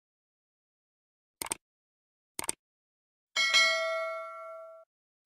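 Sound effects for an animated subscribe reminder: two short clicks about a second apart, then a bright notification-bell ding that rings out and fades over about a second and a half.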